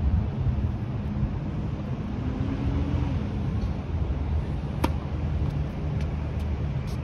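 A tennis racket strikes the ball on a serve, one sharp crack about five seconds in, over a steady low rumble.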